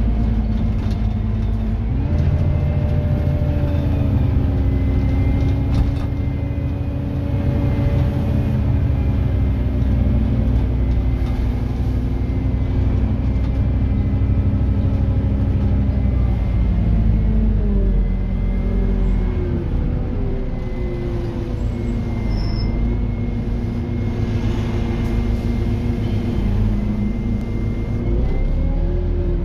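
Scania N230UD OmniDekka double-decker bus's five-cylinder diesel engine under way, heard from the upper deck. The engine note rises about two seconds in, drops and shifts through the middle as the bus changes speed, and climbs again near the end. A faint steady high whine runs above it.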